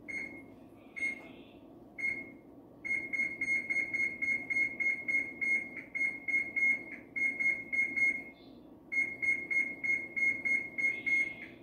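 Oven control panel on a kitchen range beeping as its keys are pressed to set the cooking time: three single beeps about a second apart, then long quick runs of about four beeps a second, broken by one short pause.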